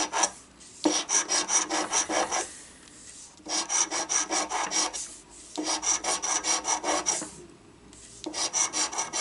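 A coin scratching the coating off a Millionaire Club scratch-off lottery ticket: quick back-and-forth scrapes, about six a second, in four runs with short pauses between.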